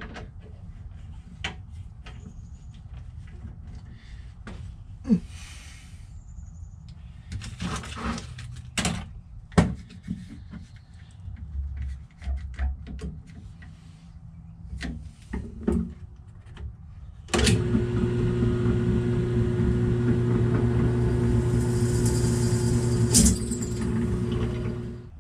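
Scattered clicks and knocks of parts being handled and clamped, then a benchtop drill press switched on about 17 seconds in, running with a steady hum for about six seconds as a hole is drilled. It is switched off near the end and winds down.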